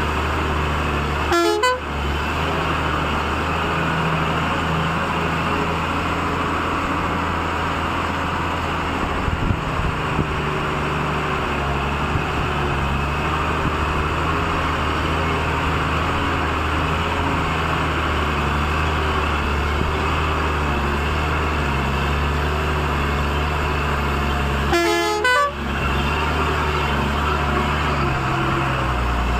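Truck engine running steadily while driving, with two short horn toots, one about a second and a half in and one near the end.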